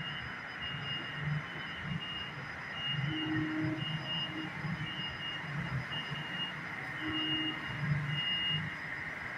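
Electronic beeping: a short high tone repeating about every half second over a steady hum and low background murmur.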